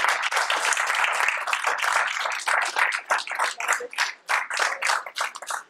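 An audience applauding, dense at first, then thinning to scattered separate claps that die away near the end.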